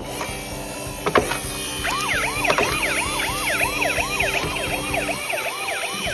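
Toy ambulance's electronic siren sounding a fast yelp, short repeating pitch sweeps about three a second, starting about two seconds in. A few sharp clicks come before it.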